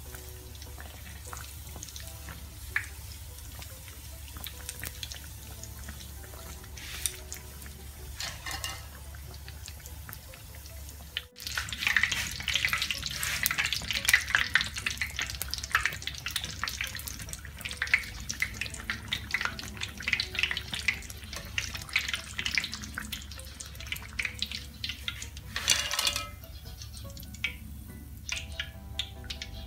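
Dough sticks deep-frying in a wok of hot oil: a dense, crackling sizzle. It jumps much louder about eleven seconds in and falls back near the end as they are lifted out.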